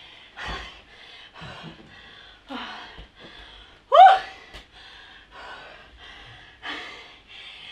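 A woman breathing hard in short, noisy puffs about twice a second, with one loud rising vocal cry about four seconds in.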